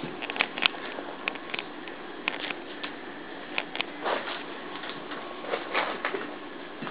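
Two Cardigan Welsh Corgi puppies wrestling: an irregular patter of quick clicks and knocks from paws scrabbling and bodies bumping.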